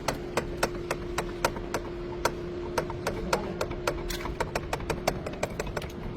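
A rapid, slightly irregular run of sharp clicks or taps, about four or five a second, over a steady low hum.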